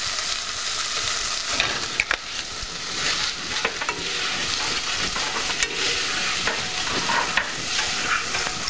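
Corn kernels, onion and green pepper sizzling in a saucepan while a spoon stirs them briskly, with steady frying hiss and frequent scrapes and clicks of the spoon against the pan.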